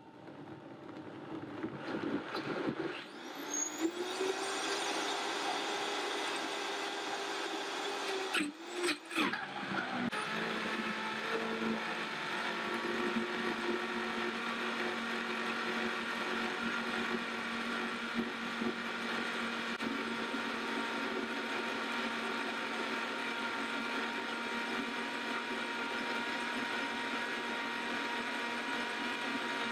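Vitamix 5200 blender's 2-peak-horsepower motor blending frozen mango chunks, milk and sugar into sherbet. It starts low, rises in pitch and loudness over the first few seconds as the speed is turned up, dips briefly about nine seconds in, then runs steadily at full speed at a lower pitch until the thick sherbet is done.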